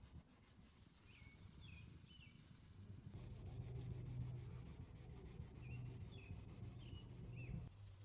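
Faint scrubbing of a cloth working gritty rubbing compound over a car's painted bumper to take off scuffs and paint transfer. It grows louder about three seconds in and stops abruptly near the end.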